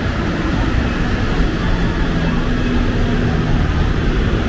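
Steady low rumble of city street traffic, with a vehicle engine's hum rising out of it in the middle for about two seconds.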